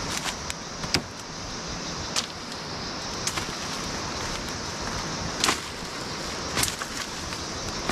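Steady rushing of a small stream, with a few sharp, irregular knocks of hand-tool work on wood and stakes.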